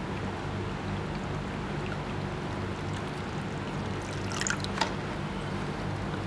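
Hot water poured slowly from a glass beaker into a plastic bucket of water, with a short splash and dribble about four seconds in as the beaker is lifted out. A steady low hum runs underneath.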